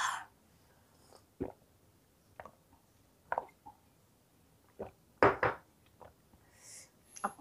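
Light knocks and clicks of tableware during a meal, a few scattered ones about a second apart, with a louder double knock a little past the middle.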